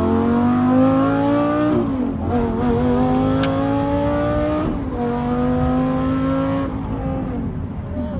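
Lamborghini Gallardo V10 engine accelerating hard, its pitch climbing through the revs and dropping at upshifts about two and five seconds in, then easing off near the end.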